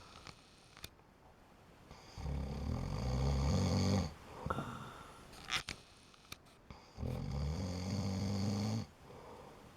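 Snoring: two long, low, rattling snores of about two seconds each, roughly five seconds apart, with quieter breathing between them.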